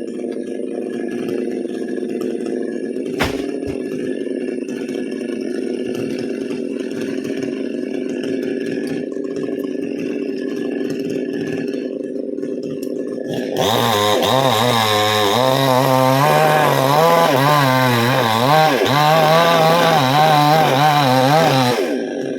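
Two-stroke chainsaw idling steadily, with a single sharp knock about three seconds in. About halfway through it is opened up and runs loud with a wavering pitch for roughly eight seconds as it cuts into the coconut trunk, then drops back to idle near the end.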